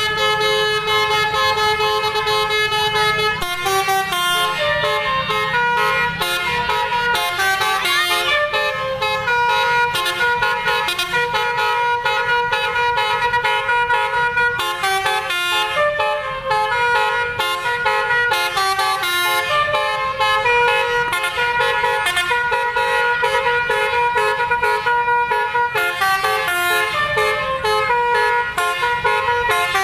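Indonesian bus's 'telolet basuri' musical multi-tone air horn playing a continuous tune, several notes sounding at once and the chord changing every fraction of a second, over a low engine rumble.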